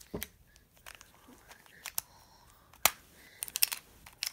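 Plastic pieces of a Calvin's Puzzle 3x3x5 cuboid clicking as it is worked apart by hand: a few separate sharp clicks, the loudest a little past the middle, then a quick run of clicks near the end.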